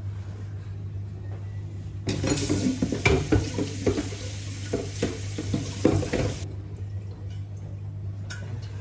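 Kitchen tap running for about four seconds, starting about two seconds in, while a cooking pot is rinsed under it, the pot knocking and clanking in the sink. A steady low hum runs underneath throughout.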